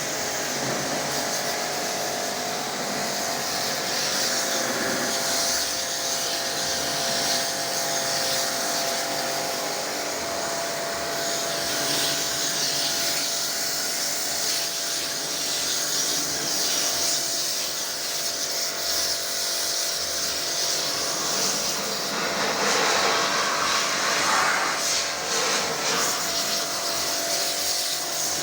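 Portable electric pressure washer switched on and running steadily: a motor hum under a loud hiss of water spray.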